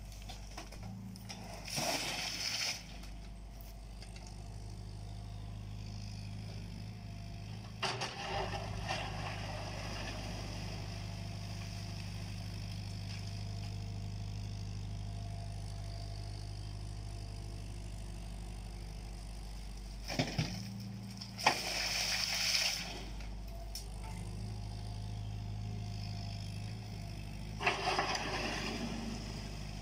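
JCB 8050 mini excavator's diesel engine running steadily as it works. Four times, a few seconds of scraping and clattering stand out as the steel bucket digs into the earth and dumps soil and stones into a steel tipping trailer.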